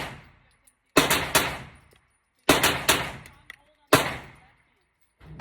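Walther PDP 9mm pistol being fired in quick strings of shots: about three shots, then about four, then single shots, each with a short ringing tail.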